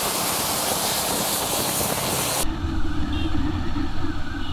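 Steady hiss of wind, rain and tyres on a wet road from a moving motorcycle, which cuts off suddenly about halfway through to a motorcycle engine running low and steady as it rides.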